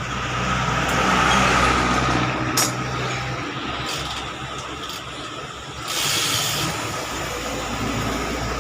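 Yamaha FZ motorcycle engine running steadily, swelling in loudness about a second in before settling. It is running on a newly fitted ignition coil, which was put in to cure a starting-then-dying fault. A sharp click comes a little after two and a half seconds, and a short hiss around six seconds.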